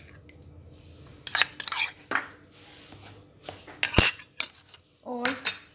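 A steel spoon clinking and scraping against the bowls as curd is spooned onto the flour, with one loud sharp clink about four seconds in.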